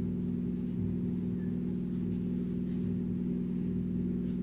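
A steady low hum of a few held tones, with faint rustling of yarn and a crochet hook being handled in the first part.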